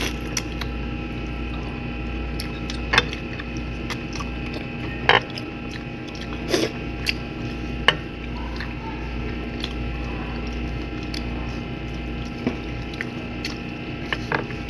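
A person chewing barbecued chicken, with a handful of short wet mouth clicks and smacks scattered through. A steady low hum runs underneath.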